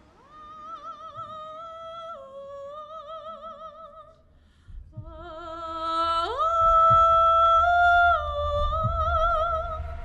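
A high operatic female voice sings long, wordless held notes with a wide vibrato. After a short break it comes back on a low note and swoops up an octave about six seconds in, over a low rumble.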